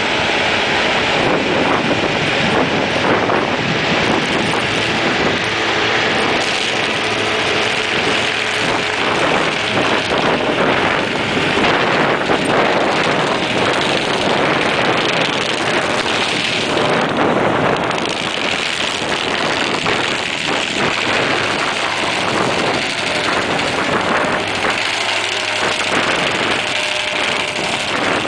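Excavator-mounted AHWI SF1100 hydraulic stump grinder cutting into stumps and soil, driven by its AHWI PW144 200 hp powerpack engine, which runs hard under load. The result is a loud, steady mix of engine and grinding.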